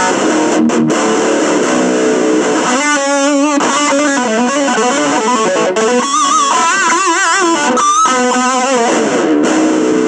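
Electric guitar played through a small 25-watt practice amp with a 5-inch speaker: chords for the first few seconds, then a lead line of sustained single notes with wide vibrato.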